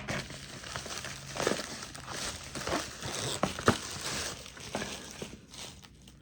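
A mailed package being handled and torn open: crinkling and tearing of the packaging, with scattered sharp clicks, the loudest a little past halfway.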